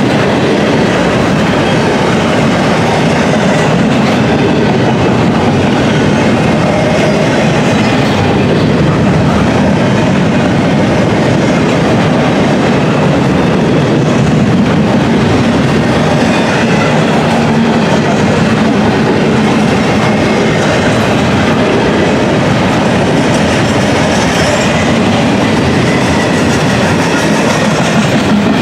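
Southbound intermodal container freight train rolling past, a loud steady rumble of steel wheels on rail.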